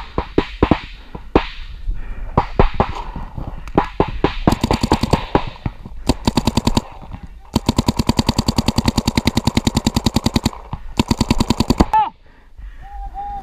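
An Empire Vanquish electronic paintball marker firing. Scattered single shots come first, then several rapid strings of about a dozen shots a second, the longest lasting about three seconds. The shooting cuts off suddenly about twelve seconds in, and a short pitched tone sounds near the end.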